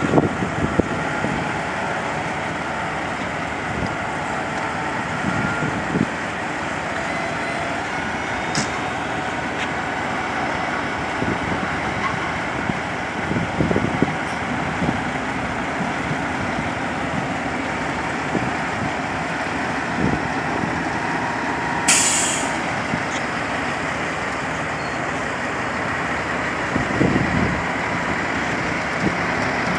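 Semi-truck diesel engine running steadily as the tractor-trailer backs up, with one short burst of air-brake hiss about three-quarters of the way through.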